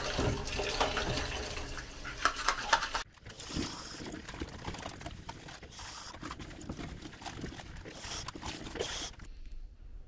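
Water running and trickling, with small clicks and knocks of things being handled; the sound changes abruptly about three seconds in.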